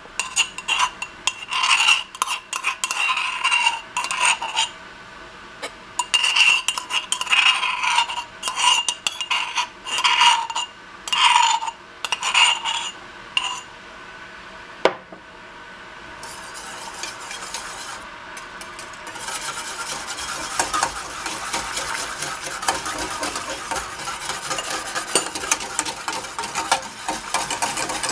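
Metal wire whisk beating hot milk in a stainless steel saucepan, its wires clinking and ringing against the pan in stop-start bursts. About halfway through there is a single sharp click, and from then on the whisking is fast and continuous.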